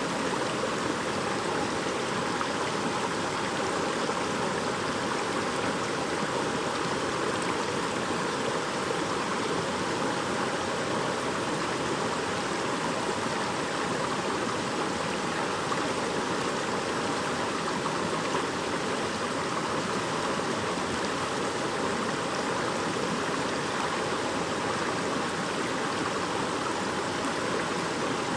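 Babbling brook: shallow water running and splashing over stones in a steady, even rush without let-up.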